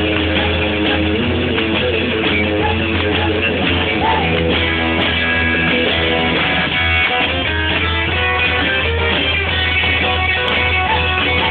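Live rock'n'roll band playing, with electric guitar over an upright double bass keeping a steady low line.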